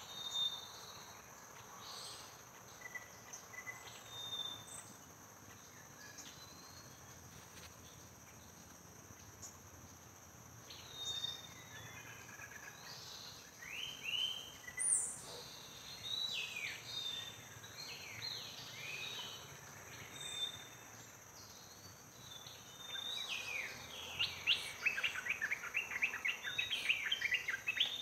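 Birds chirping and calling over a steady, high insect drone of crickets or cicadas, with a quick run of chirps near the end.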